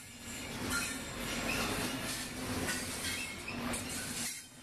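Double-stack container train's well cars rolling past on steel wheels: a steady rumble with clicks of wheels over the rails and a faint wheel squeal. The sound dips briefly near the end.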